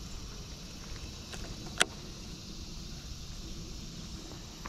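Steady low outdoor rumble, with one sharp click a little under two seconds in.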